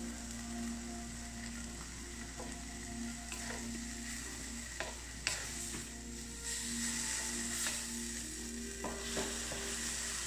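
Chopped tomatoes and green vegetables sizzling in a nonstick wok as a wooden spatula stirs them, with a few sharp clicks of the spatula against the pan, the loudest about five seconds in.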